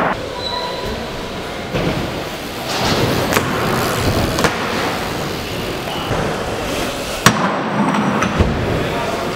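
BMX bike tyres rolling on skatepark ramps, with several sharp clacks of bikes landing and hitting the obstacles; the sharpest comes about seven seconds in.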